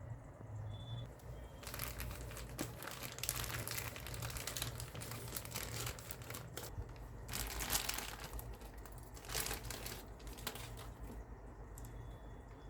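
Packaging being handled and crinkled, in irregular rustling spells that start about a second and a half in and die away near the end.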